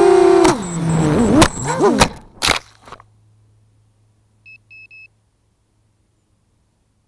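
FPV racing quadcopter's brushless motors whining at speed, heard from the onboard camera; about half a second in the pitch drops and wavers as the quad clips the grass and crashes, with several sharp knocks, and the motors stop about three seconds in. About a second and a half later come three short high beeps.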